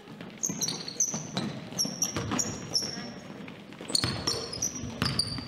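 Sneakers squeaking on a gym floor in many short, high chirps during play, with a basketball being dribbled and bouncing on the hardwood.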